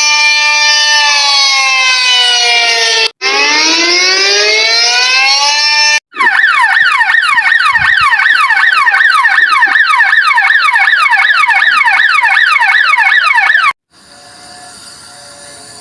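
Electronic siren sound effect: a held tone glides down, breaks off, then glides back up. After a second short break it switches to a fast yelp of falling sweeps, about three a second. It cuts off abruptly near the end, leaving a quieter steady chord of tones.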